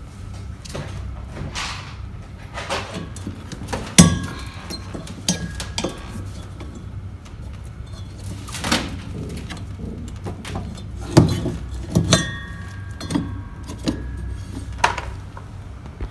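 Hand tools being handled: a series of irregular metal clinks and knocks, a few ringing briefly, over a low steady hum.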